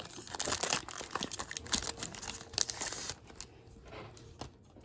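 Foil trading-card pack being torn open and crinkled by hand: a dense run of crackling and tearing for about three seconds, then it dies down to faint handling.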